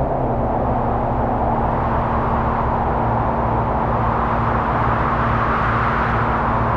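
Dave Smith Instruments Prophet '08 analog synthesizer playing a steady, noisy wind-like drone over a held low tone, with a pulsing bass underneath; the hiss grows brighter about five seconds in.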